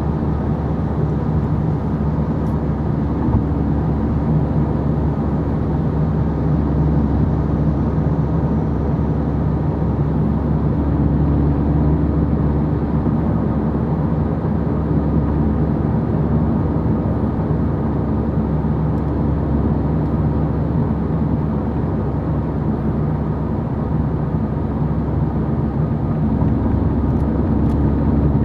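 Steady cabin drone of a VW Golf 6 GTI Edition 35 cruising at motorway speed: the hum of its 2.0-litre turbocharged four-cylinder engine mixed with tyre and road noise, heard from inside the car and holding an even pitch.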